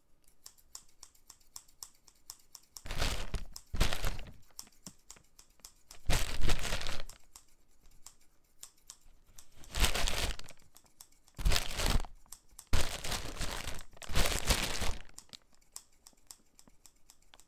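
Handfuls of dry straw rustling and a plastic compost bag crinkling as the straw is stuffed into the bag, in loud bursts about a second long, seven or so in all. Light clicks of scissors chopping the straw come between the bursts.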